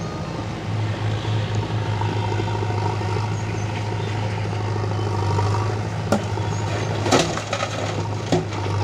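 Diesel engines of a Swaraj 744 FE three-cylinder tractor and a JCB 3DX backhoe loader running steadily, with a few sharp knocks about six, seven and eight seconds in as the loader bucket works over the trolley, the one near seven seconds the loudest.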